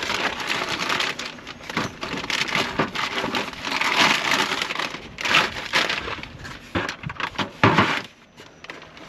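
Gear being handled and set in place on a cargo rack: a dense run of rustling and scraping with many light knocks, busiest around the middle.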